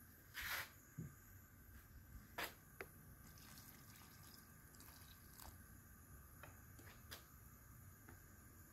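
Water poured from a plastic bowl into a stainless steel pot of bean pods, trickling and dripping faintly, with a brief rush of noise about half a second in. A few light knocks of a metal ladle against the pot are scattered through.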